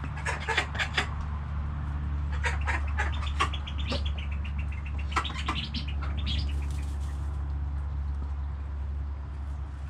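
Ducks calling: runs of short quacks and chatter in the first second and again from about two and a half to six and a half seconds, some calls gliding up and down in pitch, over a steady low hum.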